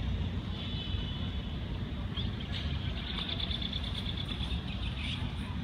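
Open-air ambience: a steady wind rumble on the microphone, with high-pitched bird chirps about half a second in and again from about two to five seconds in.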